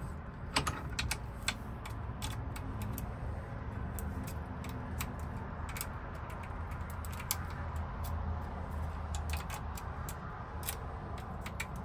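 Irregular small metallic clicks and taps from working a Ford F-150 ignition lock cylinder held in a vise, as it is worked loose for disassembly. A steady low hum runs underneath.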